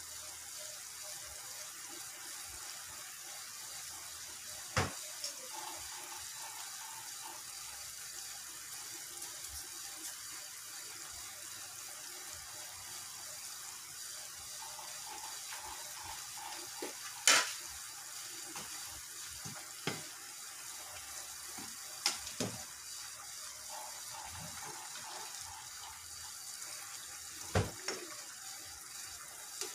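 Pot of chicken broth simmering on a gas stove: a steady bubbling hiss, broken by a handful of sharp clicks, the loudest about halfway through.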